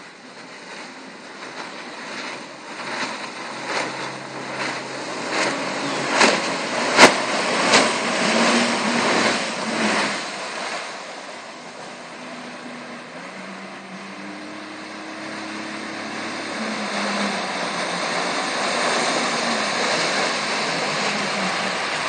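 Mercury 30 hp outboard on a Craig Cat catamaran running at speed, growing louder as the boat approaches. It comes over a run of sharp slaps or knocks, several a second, in the first half.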